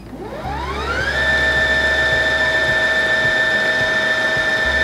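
Singer Confidence 7640 sewing machine's motor running in bobbin winding mode, winding thread onto the bobbin. Its whine rises over about the first second as the motor speeds up, then holds steady at full speed.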